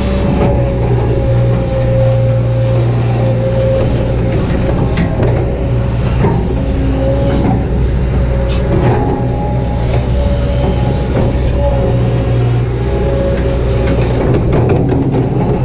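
Kobelco SK200-8 hydraulic excavator's diesel engine running steadily under working load, with a hydraulic whine that wavers in pitch and scattered clanks and scrapes as it works.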